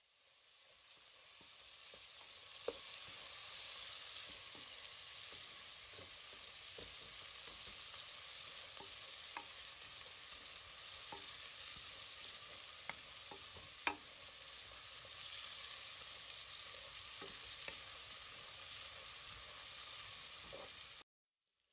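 Marinated chicken pieces sizzling on a grill grate: a steady hiss with scattered sharp pops and crackles. It fades in at the start and cuts off abruptly shortly before the end.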